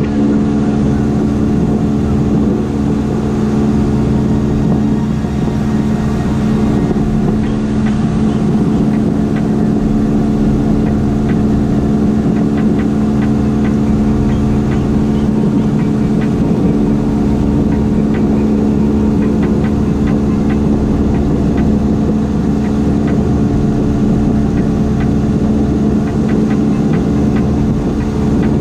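Outboard motor of a small fishing boat running steadily under way, a constant engine drone with no change in speed.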